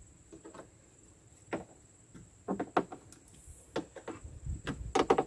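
Irregular clicks and knocks of plastic cab trim parts being handled and fitted by hand, with a small cluster of clicks about halfway through and another near the end.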